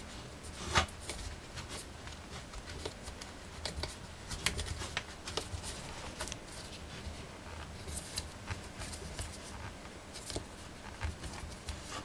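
Black plastic screw-on feeder base being twisted onto the neck of a seed-filled 2-liter plastic soda bottle: scattered light clicks and ticks of plastic on plastic, spread irregularly, the sharpest a little under a second in.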